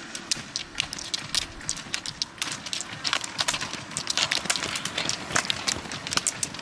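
Roller skiers skating uphill on asphalt: the hard tips of their ski poles click sharply and irregularly against the road, thickest about three to five seconds in, over the steady rolling of the roller-ski wheels.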